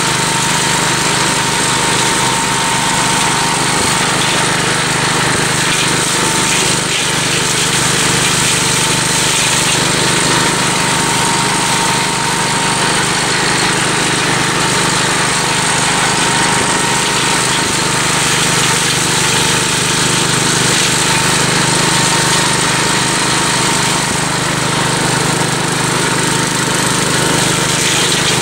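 Gravely Commercial 12 walk-behind tractor running steadily under load, its 30-inch brush hog cutting into a dense pricker bush without the engine bogging down.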